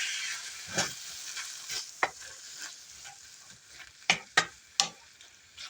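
A filling in teriyaki sauce sizzling in a frying pan, the sizzle fading as the heat is turned down, while a utensil stirs it and knocks against the pan a handful of times, the sharpest knocks a little after four seconds in.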